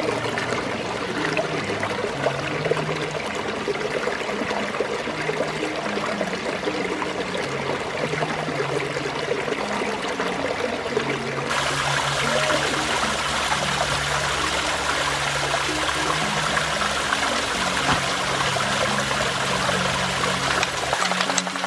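Creek water rushing steadily over rocks, turning louder and brighter about halfway through. Soft low notes of background music run underneath.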